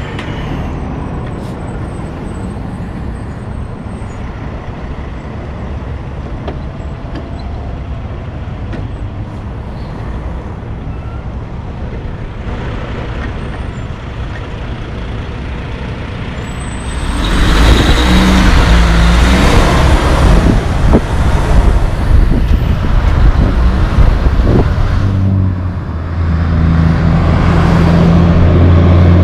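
Heavy diesel trucks passing on a street: engine and tyre noise, growing much louder a little past halfway as a truck goes by close, then another truck's engine drone building near the end.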